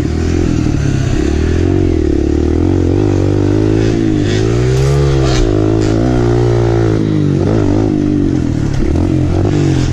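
Kawasaki KLX 140L dirt bike's single-cylinder four-stroke engine running under load on a trail, revving up and back down about halfway through, with a few brief clatters.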